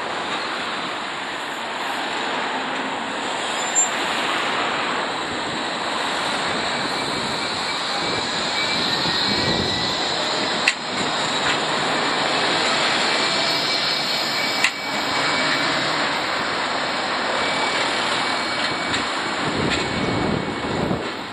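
A Bombardier Flexity 2 tram pulling away and passing close by: a steady rumble of steel wheels on street rails with a faint high electric whine, and two sharp clicks about four seconds apart around the middle. Wind noise on the microphone runs under it.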